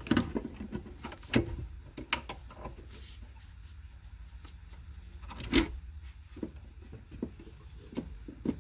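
Scattered clicks, taps and knocks of hands fitting a Ford Mustang PCM (engine computer) and its wiring-harness connectors onto their mounting bracket, with the sharpest knocks about a second and a half in and again past five seconds. A faint low hum runs underneath.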